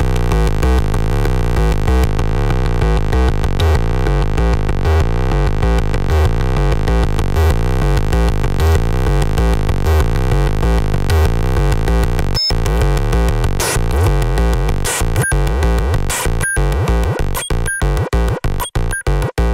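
Arturia MicroBrute analog synthesizer running its step sequencer: a loud, gritty sequence of rapid low notes. About two-thirds through it starts dropping out into short silences that come faster and faster, chopping the sequence into a stutter as a hand works the synth's sliders.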